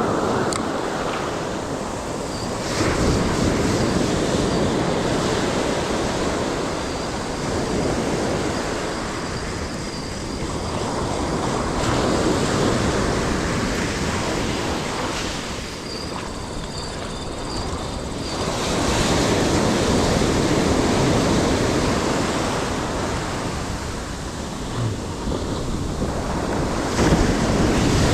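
Ocean surf washing onto the shore, the wash swelling and fading every several seconds, with wind buffeting the microphone.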